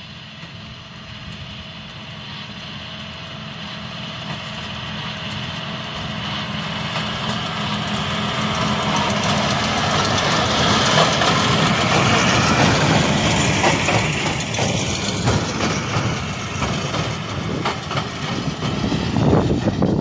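John Deere 6215R tractor's six-cylinder diesel engine working under load as it pulls a John Deere 1433 large square baler through the hay, along with the baler's clattering. It grows steadily louder over the first dozen seconds as the rig comes close, then stays loud.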